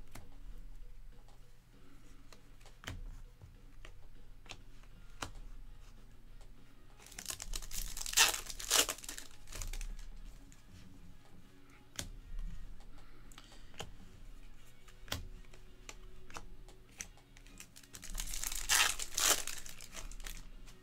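Crinkly plastic-foil wrappers of Bowman baseball card packs being torn open and crumpled in two bursts, about seven seconds in and again near the end. Light clicks of the cards being handled come in between.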